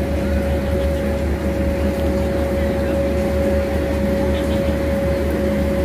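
A steady mechanical drone with a constant mid-pitched whine, over a fluttering low rumble of wind on the microphone.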